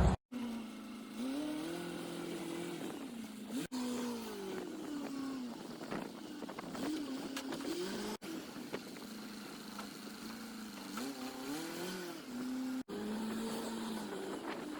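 Engine of the M816 military wrecker rising and falling in pitch as it is revved and worked, in sped-up footage that raises its pitch. The sound breaks off for an instant three times where the footage is cut.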